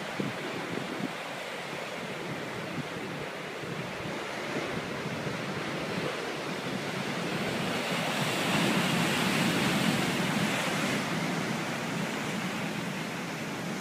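Ocean waves breaking and pounding on a rocky shoreline: a continuous rush of surf and white water that builds to its loudest a little past halfway as a wave breaks, then eases.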